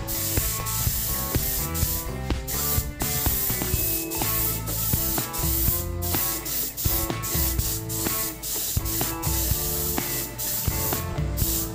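Air-fed gravity spray gun hissing as it sprays paint, the hiss cutting out briefly several times as the trigger is let go. Background music plays underneath.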